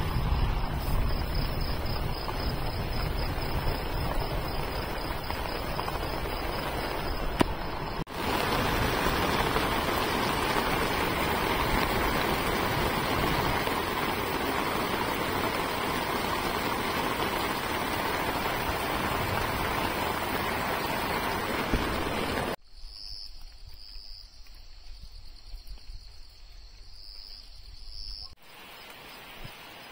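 Heavy rain pouring down in a steady, dense hiss, growing louder after a cut about eight seconds in. About two-thirds of the way through it drops away abruptly to a much quieter wet night with insects chirping in short, repeated pulses.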